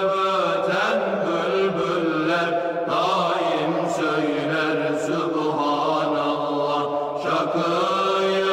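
Unaccompanied vocal chanting of a Turkish Sufi ilahi, with long held melodic lines that slide between notes and no instruments.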